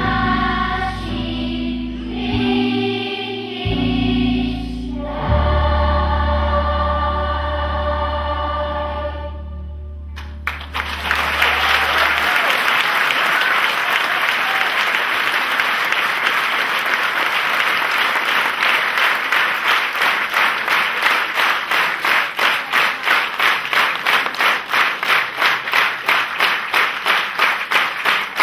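A children's choir sings the close of a song and holds a final chord, which stops about ten seconds in. Audience applause breaks out at once and settles into rhythmic clapping in unison, about three claps a second.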